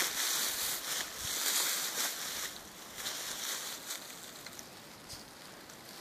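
Small taiga creek running over a shallow riffle: a steady watery hiss, louder for the first couple of seconds and then quieter.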